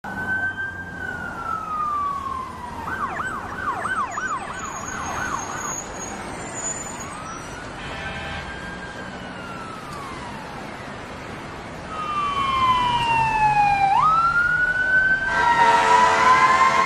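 Emergency vehicle sirens: a slow wail falling in pitch, then a fast yelp cycling about two to three times a second, then more slow wails, one sweeping down and jumping sharply back up. Near the end a louder sound with several pitches at once cuts in and rises slowly.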